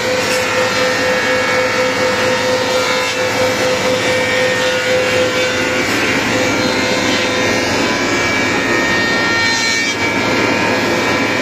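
Weinig Unimat 23 four-sided planer running, its cutterheads planing a wet softwood board: a loud, even machine noise with a steady hum through it.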